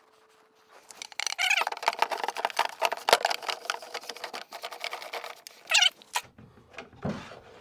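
Hands greasing a water filter housing's rubber O-ring and seating the housing: a dense run of rubbing and scraping, with a short high squeak near the end.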